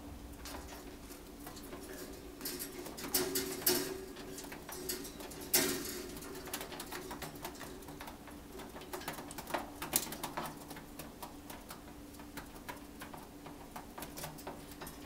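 Pet parrots, a red-breasted parakeet and an African grey, making soft low cooing chatter, with a scatter of clicks and a few louder taps of claws and beak on the wire cage as the parakeet climbs down it.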